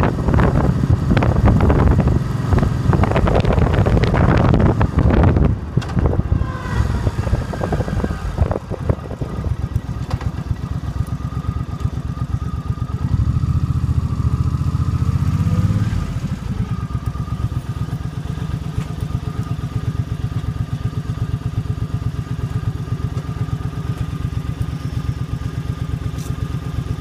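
2005 Suzuki Boulevard C50's 805cc V-twin engine, with wind rushing over the microphone for the first few seconds while riding. The engine then slows to a steady idle, is briefly louder about halfway through, and idles evenly again.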